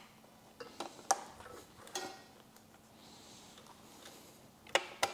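Scattered light plastic clicks and taps as plastic parts of a motorcycle fairing are handled and snapped into place, with a louder cluster of clicks near the end.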